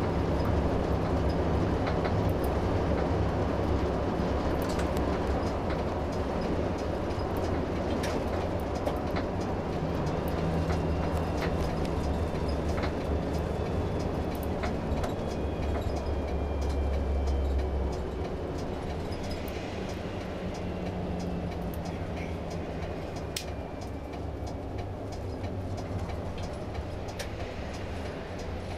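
Inside a highway coach: steady diesel engine drone and road noise as the bus drives, with scattered light clicks in the cabin. About two-thirds of the way through the engine note eases and the sound gets quieter as the bus slows for a stop.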